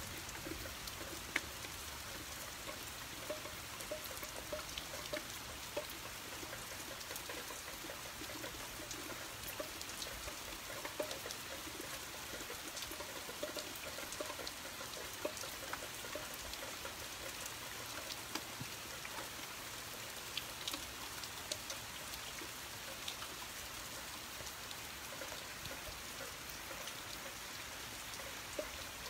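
Steady thunderstorm rain falling, with many separate drops striking close by as small sharp ticks.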